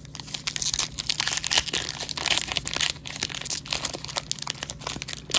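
Wax-paper-style Topps Heritage baseball card pack wrapper being torn open and crinkled by hand: a dense run of crackling and crinkling with many sharp snaps, beginning a moment in.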